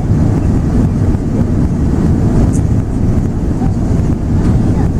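Steady low rumble of cabin noise inside an Airbus A380 airliner: engines and airflow heard from a passenger seat. A faint brief click about halfway through.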